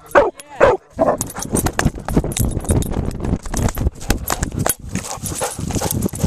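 A dog barks twice, then from about a second in there is a fast, uneven clatter of thumps and rustling: the camera being jostled as its holder runs over grass.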